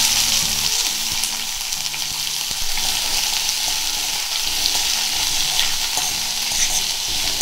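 Chopped onion sizzling in hot oil in an iron kadhai, loudest just as it goes in, then stirred with a steel slotted spatula scraping and clicking against the pan.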